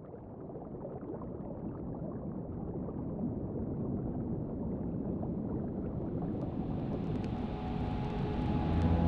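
Flowing stream water burbling, fading in and growing steadily louder and brighter. Music begins to come in near the end.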